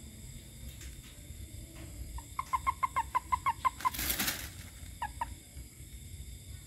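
A frog calling: a quick run of about a dozen short croaks, about seven a second, then a brief noisy burst and two more croaks a second later.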